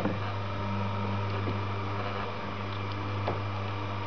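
Electric gear motor driving a homemade woodcut printing press, running steadily with a low hum. There are a couple of faint clicks.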